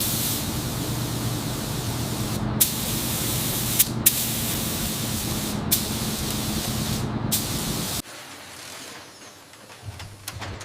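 Compressed-air spraying, a loud steady hiss over a low hum. It breaks off briefly about four times, as the trigger is let go, and stops abruptly about eight seconds in.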